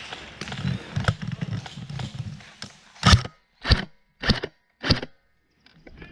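Rustling through woodland undergrowth with small cracks of twigs, then four heavy footfalls on the forest floor at a steady walking pace, each a short thud.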